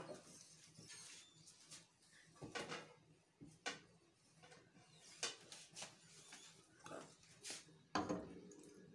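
Wooden spoon faintly knocking and scraping against a stainless steel pot, several scattered light knocks.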